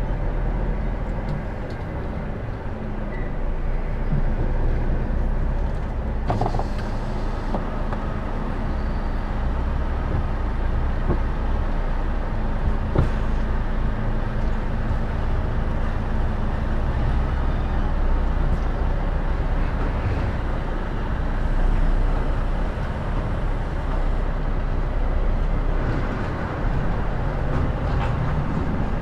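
HGV lorry's diesel engine running as the truck pulls slowly away across a yard, heard from inside the cab: a steady low rumble with a couple of faint clicks.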